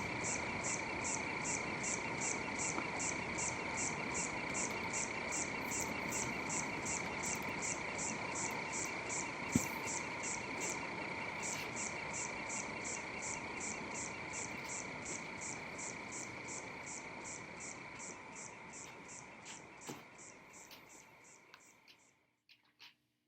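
Night chorus of frogs and insects: a steady trilling drone under a regular high chirp about three times a second, fading out to silence near the end.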